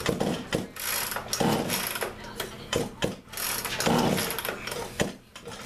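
Clicks, knocks and short rasping bursts of hand tools and parts being worked on a Poulan Pro 42cc two-stroke chainsaw during its rebuild.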